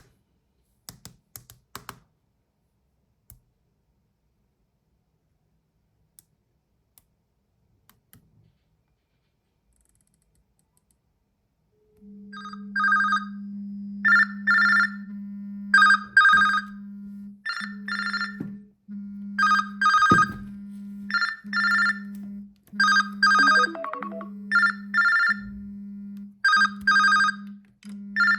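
A few light taps, then from about twelve seconds in a smartphone ringing: short repeated ringtone tones over a low steady buzz broken by short gaps.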